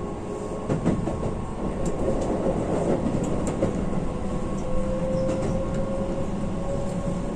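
Keihan electric limited express train running: steady rolling rumble of wheels on rail with a few sharp clicks, and a motor whine that rises slowly in pitch as the train picks up speed.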